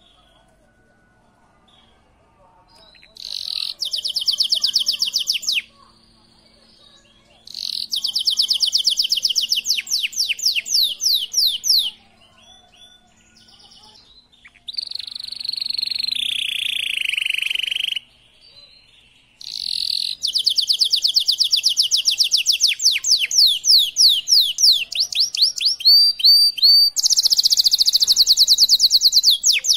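Male Waterslager canary in breeding condition singing: four phrases of fast, rapidly repeated high notes, each a few seconds long with short pauses between. The third phrase slides down in pitch, and the last and longest runs about ten seconds.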